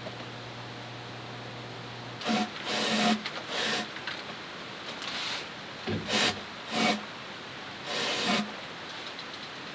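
A series of short scraping and rubbing noises, about six separate strokes of under a second each.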